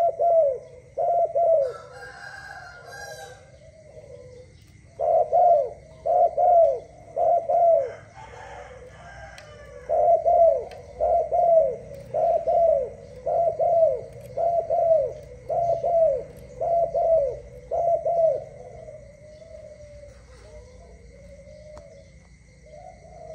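Spotted dove cooing: runs of short coo notes that fall in pitch, about two a second, with pauses between the runs. The coos fade to soft, low murmurs near the end.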